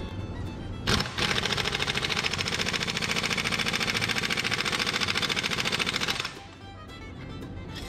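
Impact wrench hammering on a bolt of a John Deere axle's planetary carrier: a loud, fast rattle that starts about a second in and cuts off about five seconds later.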